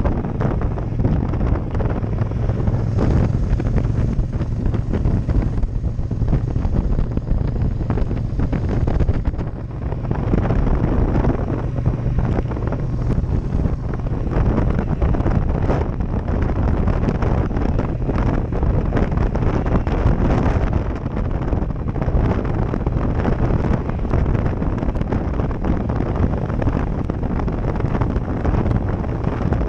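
Heavy wind noise buffeting a helmet-mounted action camera's microphone while riding, with a motorcycle engine running steadily underneath. The wind covers most of the sound, dipping briefly about a third of the way in.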